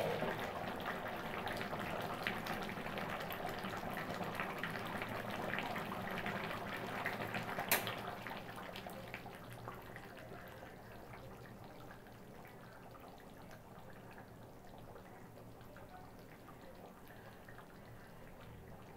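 Chicken and bottle gourd curry simmering in a wide pan, a busy crackle of popping bubbles that thins and quietens after about eight seconds. One sharp click sounds just before the bubbling quietens.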